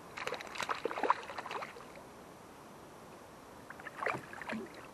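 A small largemouth bass splashing and thrashing at the water's surface beside a kayak as it is reeled in. It comes in two bouts, the first in the opening two seconds and a shorter one about four seconds in.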